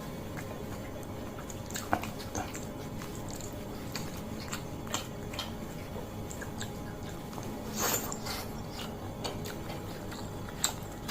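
Close-miked chewing and biting of mie goreng Aceh fried noodles, with frequent small wet clicks and smacks of the mouth and a louder burst about eight seconds in.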